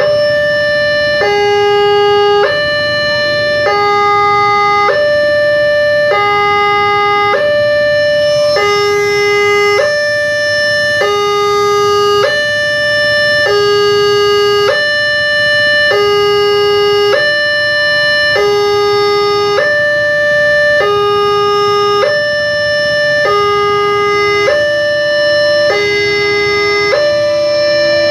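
Railway level-crossing warning alarm sounding, an electronic two-tone hi-lo signal switching between a higher and a lower tone about every second and a quarter. A low rumble of traffic runs underneath.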